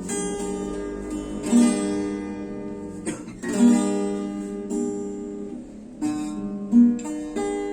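Acoustic guitar strumming the intro to a slow song, chords struck about every second and a half and left to ring.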